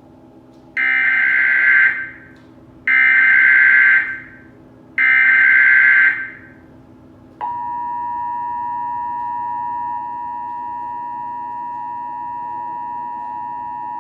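Emergency Alert System header: three bursts of warbling digital data tones, each about a second long, then a steady alert tone that starts about halfway through and holds. This is the signal that opens a broadcast emergency alert, here a severe thunderstorm warning.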